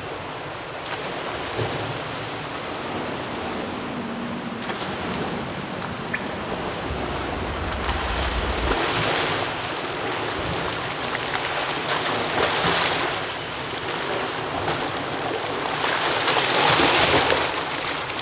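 A swimmer churning through pool water: steady splashing and sloshing, with stroke splashes swelling and growing loudest near the end as the swimmer comes up close.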